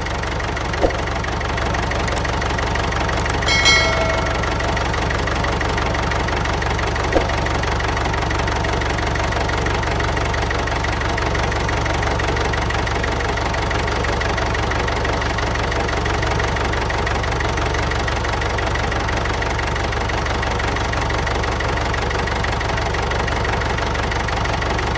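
Tractor engine sound effect running steadily at a knocking idle, dubbed over the toy tractor scenes. A brief ringing tone sounds about four seconds in.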